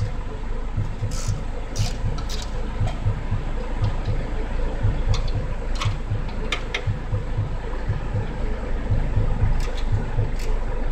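Steady low drone of an idling engine with an even low pulse, and scattered sharp metallic clicks of a wrench and hand tools working on the front shock absorber's upper mounting nuts.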